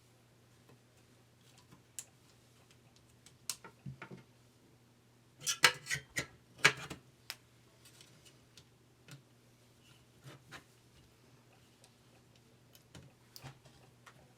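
Irregular clicks and taps of small plastic and metal keyboard parts being handled and pressed into place, with a quick cluster of sharp clacks about halfway through.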